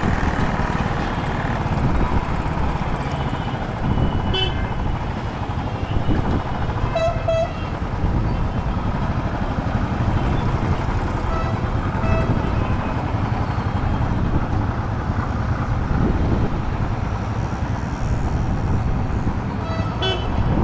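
Royal Enfield Classic 500's single-cylinder engine running in dense city traffic, with vehicle horns honking in short blasts a few times, about 4 s, 7 s and 20 s in.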